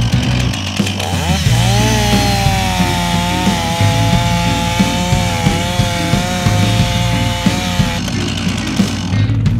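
STIHL chainsaw revving up about a second in and running at high speed as the bar bores into the tree trunk behind the face cut. The engine note stops near the end. Background music plays underneath.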